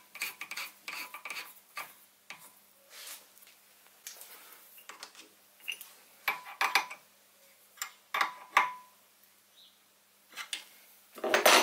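Metal clinks and scraping as the drawbar at the top of a Sieg SX2P mini-mill's spindle is tightened down on an R8 collet. The sounds come in short scattered bursts, and the loudest comes near the end.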